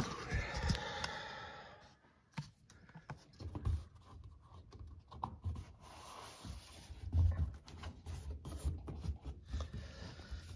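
Hands working a washing machine's rubber door gasket around the drum opening: scratching, rubbing and light knocks of rubber against the metal rim and cabinet. A brief whine sounds in the first two seconds.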